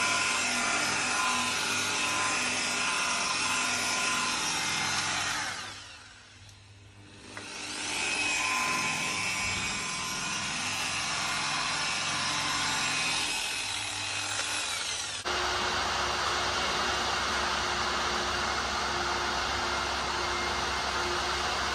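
Electric handheld polisher running against the polished metal inlet lip of an engine nacelle. About six seconds in the motor winds down and stops for a moment, then runs again. Near the end it gives way abruptly to a steady hum.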